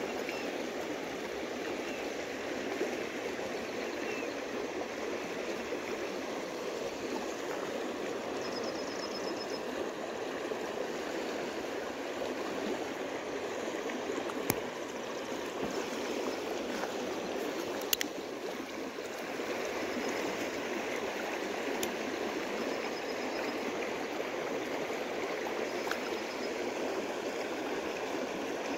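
Steady rush of flowing river water churning into the creek, with a few sharp clicks now and then.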